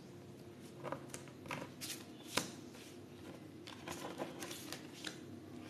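Baralho Cigano (Lenormand-style) fortune-telling cards being handled and laid out on a table, a series of faint short taps and slides.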